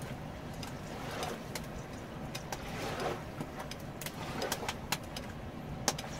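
Small wood campfire crackling, with sharp irregular pops, over a steady low rush.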